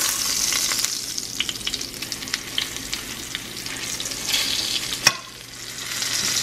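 Crispy chicken frying in hot oil in a pan: a steady sizzle with scattered crackles and pops. A sharp click comes about five seconds in, and the sizzle briefly drops after it.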